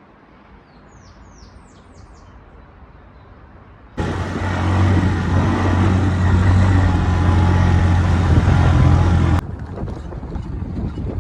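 A few high bird chirps, then a loud, steady motor hum that cuts in suddenly about four seconds in and stops abruptly after about five seconds. A quieter rough noise follows.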